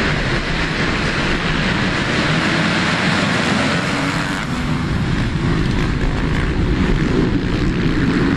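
A full gate of motocross bikes revving together and accelerating hard off the start as a pack. The sound is loud and dense throughout.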